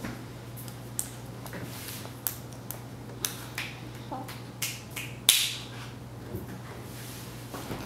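A baby's small hands clapping, irregular claps about one or two a second, the loudest about five seconds in.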